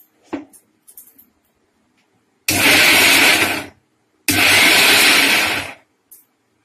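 Electric blender run in two short pulses, each a second or so long, blending boiled onions. A couple of light knocks come just before it.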